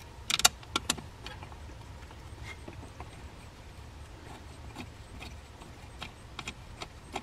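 Plastic wiring-harness connectors and their bracket being handled and clipped back on: a quick cluster of sharp clicks about half a second in, then scattered light clicks and rattles, over a steady low hum.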